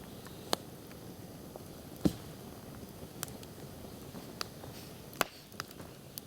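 Campfire crackling: irregular sharp pops and snaps from the burning wood, the loudest about two seconds in.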